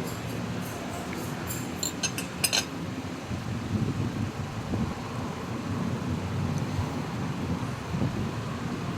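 A few light clinks of cutlery on a plate, bunched about two seconds in, over a steady low rumble of background noise.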